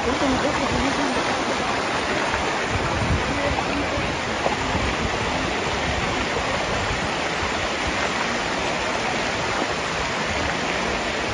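Muddy floodwater rushing steadily, a loud, even noise.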